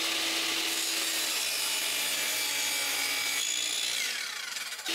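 Electric sliding miter saw cutting a half-inch poplar board, a steady hiss of the blade in the wood. About three and a half seconds in the sound drops and a falling whine follows as the blade winds down.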